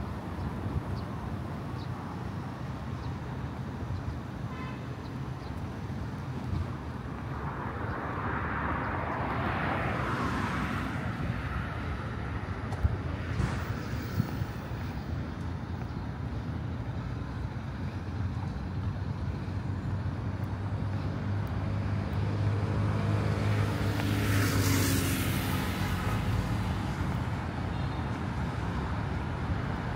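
Road traffic: a steady rumble of passing cars, with one vehicle swelling past about a third of the way in and a louder one with a droning engine about three quarters of the way in.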